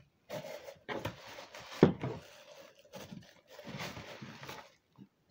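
Bubble wrap and cardboard boxes rustling as they are handled, in several spells, with one sharp knock about two seconds in.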